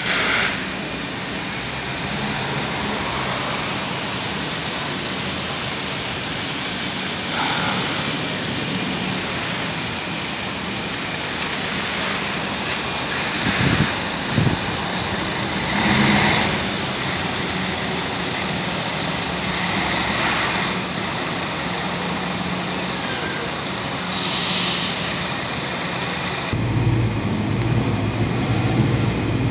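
Mercedes-Benz OC500LE single-deck bus's diesel engine running, broken by a few short bursts of compressed-air hiss, the loudest and sharpest near the end. In the last few seconds the engine's low drone is heard from inside the cabin.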